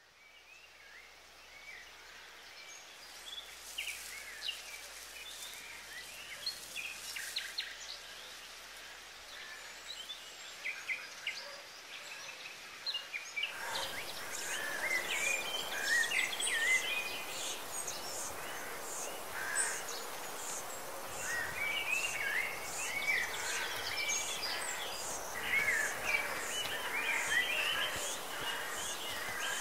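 Woodland ambience full of small birds chirping and singing, many short quick calls overlapping. It fades in from silence, grows fuller and louder about 13 seconds in, and from then on a thin high chirp repeats about once a second.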